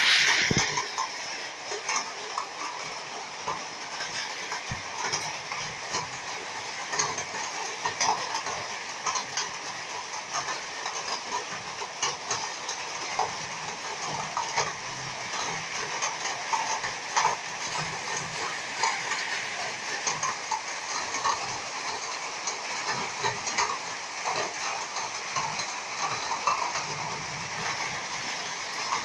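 Heavy rain mixed with hail pounding down: a steady hiss with dense, scattered sharp ticks of hailstones striking.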